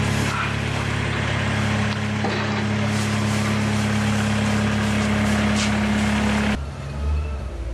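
Farm loader's engine idling steadily, a level low hum. It cuts off suddenly near the end.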